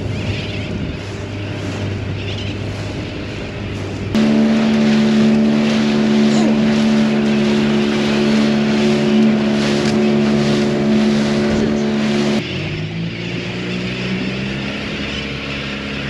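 Small boat's outboard motor running at speed with a steady hum over a hiss. Its pitch and loudness jump up sharply about four seconds in and drop back about twelve seconds in.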